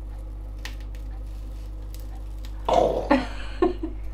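A few faint clicks of a knife cutting an onion on a plastic chopping board, then, about two and a half seconds in, a brief non-speech burst from a person's voice lasting about a second, the loudest sound here.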